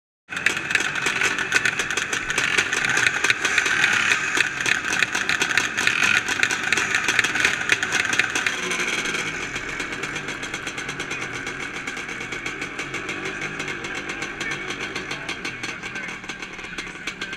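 Several vintage motocross motorcycle engines running together, the nearest one revving close to the microphone. About nine seconds in the sound drops to a quieter, steadier blend of idling engines.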